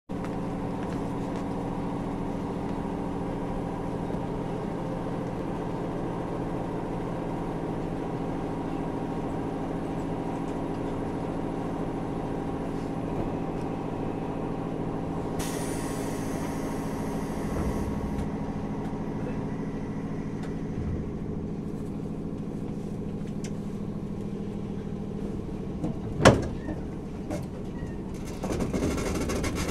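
JR Kyushu 103-1500 series electric train standing in a station, its onboard equipment giving a steady hum with several held tones. About halfway through there is a short hiss of air, a few seconds before the end one loud thump, and near the end the rumble rises as the train starts to move.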